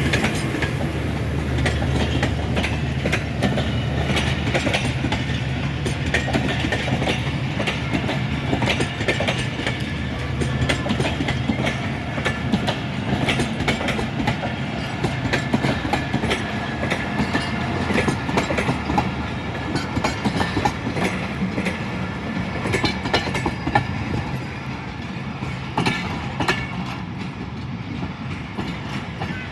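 Passenger train's coaches rolling past, wheels clicking rapidly over the rail joints, with a low diesel locomotive hum underneath that gradually fades as the train moves away.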